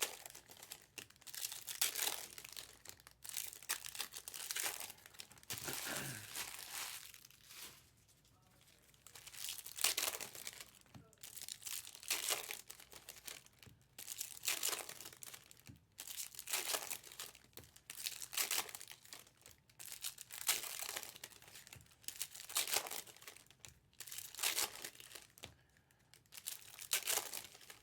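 Trading card pack wrappers crinkling and tearing open, in a run of short rustling bursts about every one to two seconds.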